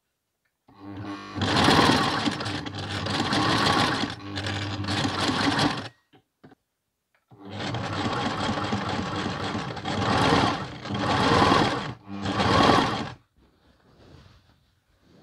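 Electric sewing machine stitching in two runs. It starts about a second in and stops near six seconds. It starts again about a second later and ends in three short, quick bursts before stopping near the end.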